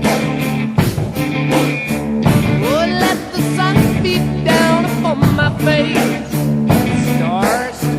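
Rock music with a steady beat, with pitched lines that slide up and down in the middle.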